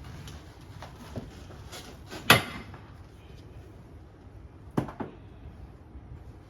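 A few scattered knocks and bumps over a low steady hum, the two loudest about two seconds in and near five seconds in.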